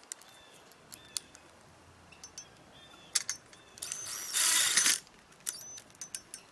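Sharp metallic clicks and clinks from a steel quick-release gate latch and its hardware being worked by hand, with one short, loud rasping burst a little past the middle.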